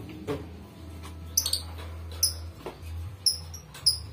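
Short, very high-pitched squeaks from a small animal, each falling in pitch, about five of them at irregular intervals. A couple of faint knocks and a low steady hum sit underneath.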